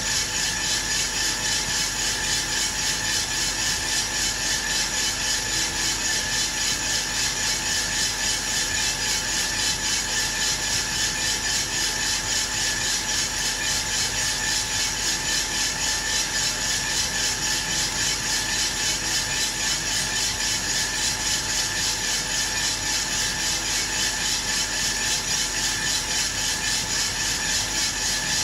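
Aillio Bullet R1 V2 drum coffee roaster running mid-roast: the drum turning with a 500 g batch of coffee beans tumbling inside, over a steady hum from its motor and fan, with a fast even pulse. The beans are at about 160 °C, in the browning stage well before first crack.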